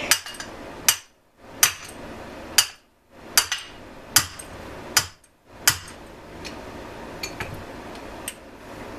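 Hammer striking metal parts of a small two-stroke engine, about eight sharp blows nearly a second apart, then a few lighter taps near the end: knocking out a part that is a bit rusted and hard to take out.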